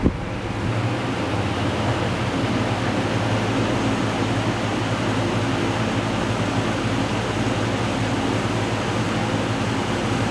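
Vintage Manning Bowman 20-inch metal-blade box fan, model 20542, running on high speed after a sharp click at the very start. It comes up to speed over the first couple of seconds, then holds a steady rush of air over a motor hum. A buzz in it is put down by the owner to the badge on top vibrating.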